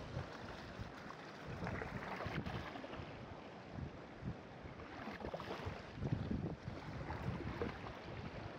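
Gusty wind buffeting the phone's microphone in uneven surges, over the wash of choppy water lapping.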